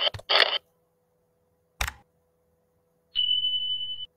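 Intro animation sound effects: a few short whooshes in the first half-second, a single mouse click near two seconds in as the subscribe button is pressed, then a steady high beep lasting about a second near the end.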